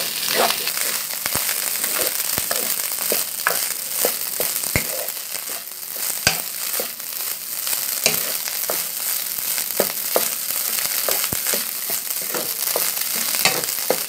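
Cold cooked rice with duck egg sizzling in hot oil in a pan while a wooden spatula stirs it, scraping and knocking against the pan at irregular moments. The rice is being fried until slightly crisp.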